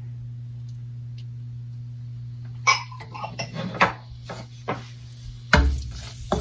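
A wooden spoon and utensils clatter against a nonstick wok. Sharp clicks and knocks start about three seconds in, with the loudest knock near the end as stirring of the onions begins, all over a steady low hum.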